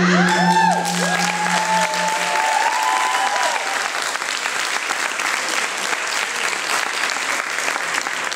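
Audience applauding as the last held chord of the music fades out about two seconds in. Several high cheering calls rise and fall over the clapping during the first few seconds.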